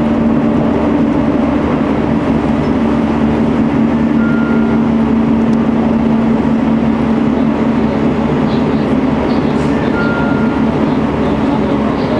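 JR 313 series electric train running along the line, heard from inside the front car: a steady running noise under a constant hum, with two brief high tones about four and ten seconds in.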